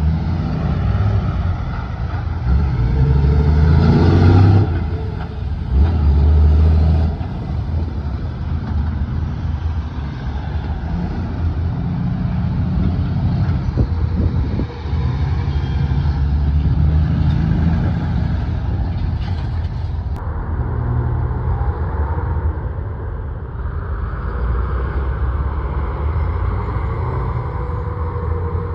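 Heavy trucks and cars passing close by, diesel engines running with a steady low rumble, loudest a few seconds in as a truck goes past.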